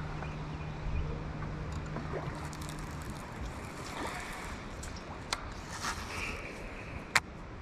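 Open-water ambience on a fishing boat: water and wind noise, with a steady low hum that stops about three seconds in and a few sharp clicks in the second half.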